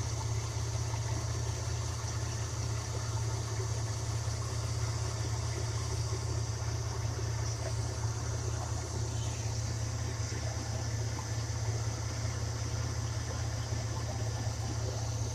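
Steady, unchanging low machine hum with a faint high hiss over it.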